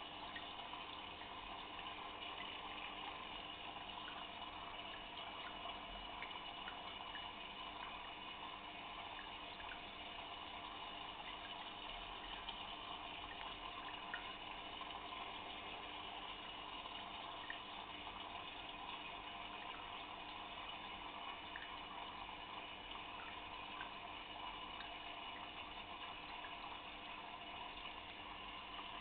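Steady running and bubbling of aquarium water, with faint scattered ticks.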